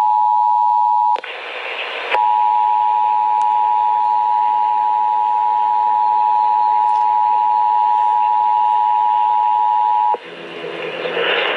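Emergency Alert System attention signal, the steady two-tone beep of 853 and 960 Hz, heard over radio. About a second in it drops out briefly into a burst of static hiss, then resumes and holds until it stops near the end. After that only radio hiss and a low hum remain.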